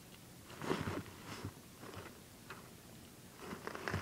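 Faint rustling and scuffling in short, irregular bursts: a Siamese kitten pawing at and tugging a crumpled sheet of paper on a carpet.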